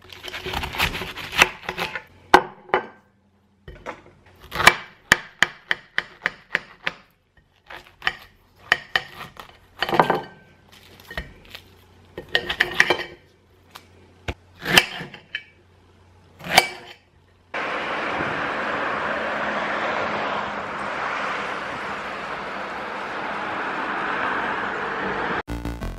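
Kitchen knife cutting up a small pineapple: a run of crunching cuts through the tough rind and sharp knocks on the countertop and a plate, with short pauses between them. About seventeen seconds in this gives way to a steady rushing noise.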